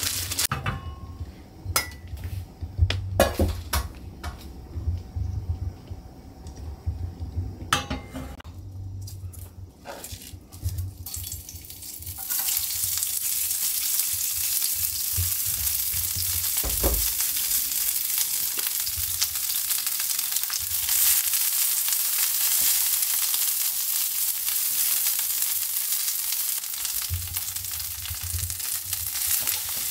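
Scattered clicks and knocks of kitchen handling, then, about twelve seconds in, a loud steady sizzle starts: cabbage frying in a hot iron frying pan on a gas burner as it is stirred with chopsticks. Near the end, sliced pork goes into the pan.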